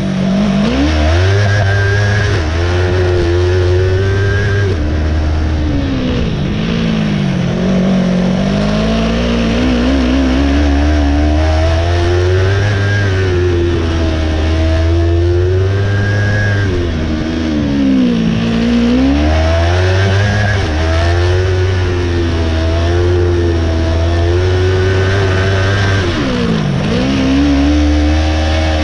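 Engine of a small open-wheel race car, heard on board, revving up and falling back again and again as the car accelerates between cones and lifts off for the turns. Its pitch drops deepest four times, about a second in, around seven seconds, around eighteen seconds and near the end.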